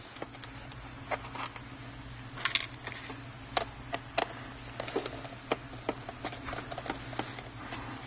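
Irregular small clicks and light taps of a screwdriver backing out the screws of a MacBook Pro's aluminium bottom case, with screws set down into a plastic parts tray, over a steady low hum.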